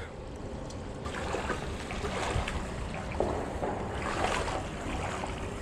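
Small water sounds lapping around an inflatable paddle board, with wind on the microphone and a few faint knocks and rustles from handling fishing tackle.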